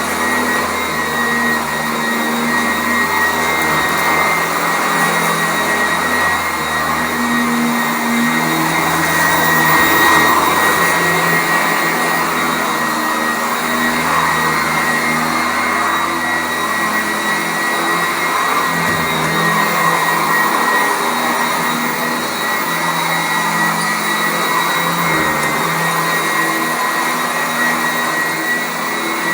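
Sanitaire SC899 commercial upright vacuum running steadily on carpet: a constant motor whine with a steady high tone, over a lower hum that wavers in pitch.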